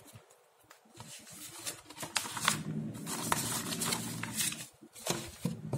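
Handling noise from the recording camera being moved about over a table: rustling and scraping with many small clicks, mostly between about one and five seconds in.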